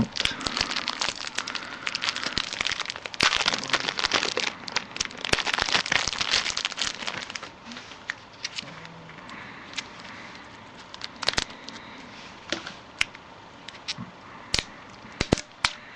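Packaging crinkling and crackling as a camcorder is taken out of its box, dense for about the first half, then thinning to scattered small clicks and taps of handling.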